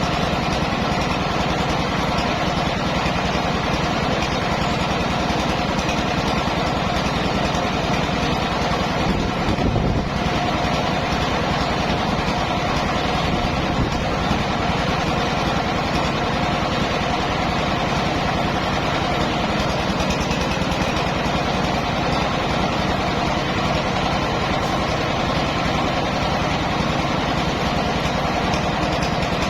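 Mobile rice milling machine running steadily, its engine and milling mechanism making a continuous mechanical drone, with a brief louder disturbance about ten seconds in.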